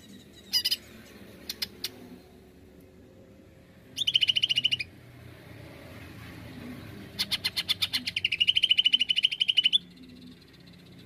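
Greater green leafbird (cucak ijo) calling: a short call, then two fast trills of rapidly repeated high notes, a brief one about four seconds in and a longer one of about two and a half seconds near the end that starts spaced out and quickens.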